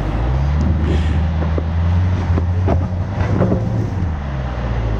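Range Rover Sport engine revving under load on a loose rocky climb: the revs rise just after the start, hold, and fall back about four seconds in. Several sharp knocks and crunches of stones under the tyres come in the middle.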